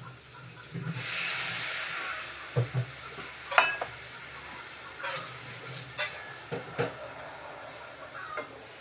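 Water poured from a steel cup into a hot pan of frying masala paste, hissing loudly as it hits the oil about a second in and settling to a steady sizzle. A wooden spatula stirs the masala, knocking against the pan several times.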